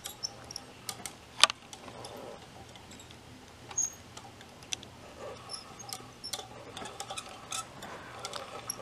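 Scattered faint clicks and light taps from handling a hand-spun gold-ring kinetic desk toy as its rings turn, with one sharper click about a second and a half in.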